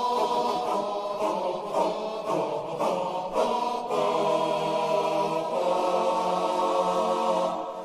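Choir singing slow, sustained chords as background music.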